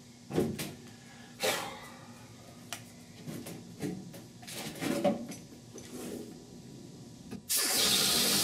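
Scattered knocks and clicks of a tool and air hose being handled, then about seven and a half seconds in an air-powered grinder with a thick cut-off wheel starts abruptly and runs steadily and loud.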